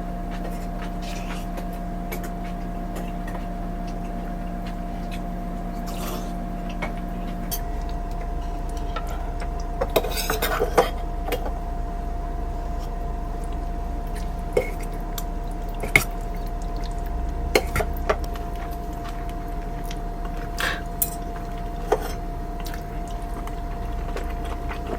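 Cutlery and dishes clinking now and then as people eat, over a steady hum; the clinks bunch up about ten seconds in.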